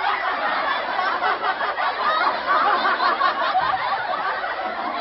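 A crowd of people laughing, many voices overlapping.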